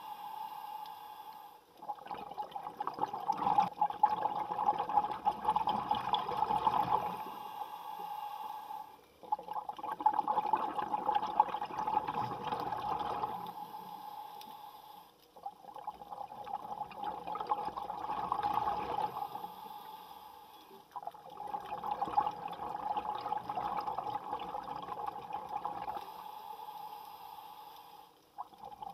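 Underwater recording of a scuba diver breathing through a regulator: a rush of exhaled bubbles that swells and fades about every six seconds, five times, over a steady hum.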